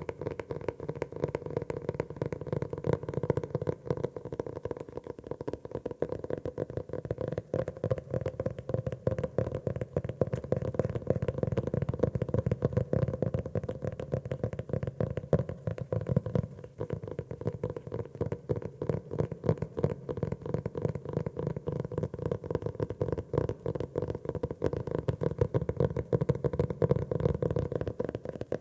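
Rapid, continuous tapping on a notebook, many taps a second, with a brief pause about two-thirds of the way through.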